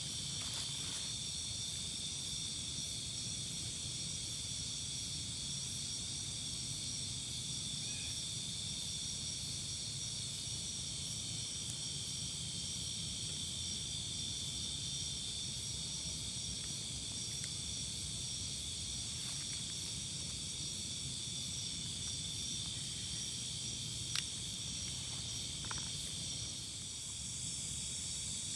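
Night insect chorus, crickets trilling in several steady high-pitched bands without a break, over a low steady rumble, with one sharp click about 24 seconds in.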